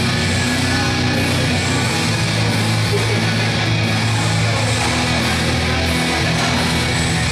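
Loud heavy rock music with electric guitar, playing steadily.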